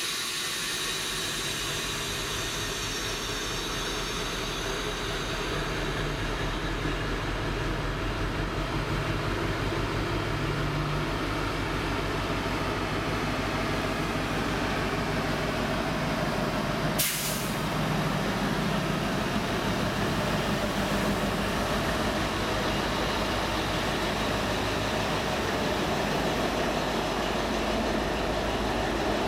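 Class 60 diesel-electric locomotive's eight-cylinder Mirrlees engine working steadily as it pulls away with a train of box wagons, the wagons rolling past towards the end. About seventeen seconds in there is a brief sharp hiss of air.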